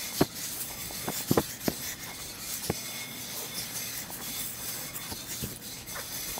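Hands scuffing and rubbing the pile of glue-down commercial carpet while working a seam together, with a few short knocks, most of them in the first three seconds.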